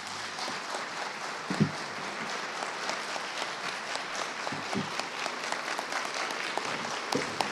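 Audience applauding steadily: many people clapping together, with a short low thump about a second and a half in.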